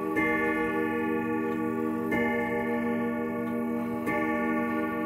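Grandfather clock striking the hour: three slow single strokes about two seconds apart, each ringing on into the next, as it counts out twelve o'clock.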